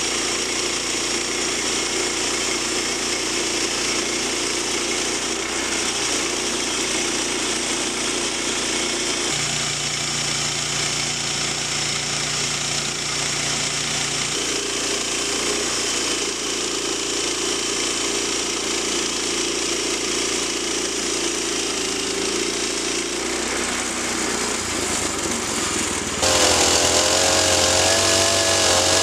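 Petrol engine of a Woodland Mills HM122 portable bandsaw sawmill running steadily while its band blade cuts through a pine log. About three seconds before the end, the sound switches abruptly to a louder Stihl MS 180 C two-stroke chainsaw running, its pitch wavering.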